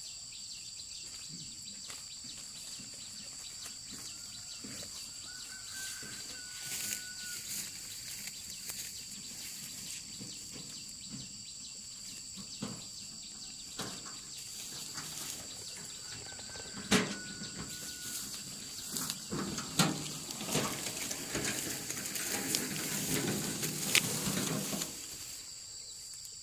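Steady high-pitched chirring of field insects over a rice paddy, with scattered sharp knocks and rustling from handling the crop. The rustling and knocks grow busier and louder in the last few seconds, with the sharpest knocks near the middle and near the end.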